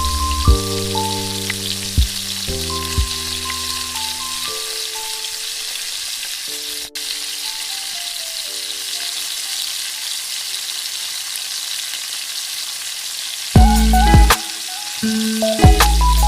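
Food frying in hot oil in a pan: a steady sizzle, under background music of held notes that thins out about four seconds in and comes back louder near the end.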